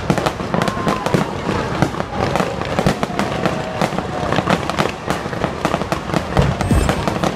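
Aerial fireworks display going off: a dense, continuous run of sharp bangs and crackles from bursting shells, several a second.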